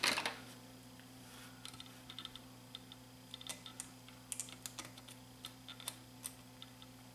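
Small plastic clicks and ticks of fingers working a wiring plug into its connector on a VCR circuit board, scattered and faint, with a louder handling rustle right at the start.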